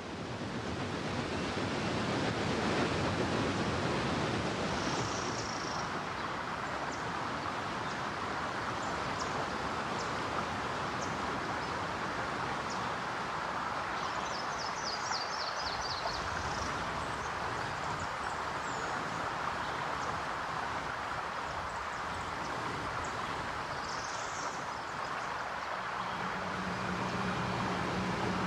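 Steady rushing noise of churning river water and wind, with a few faint high chirps. Near the end a low, steady engine hum comes in, the drone of a diesel towboat under way.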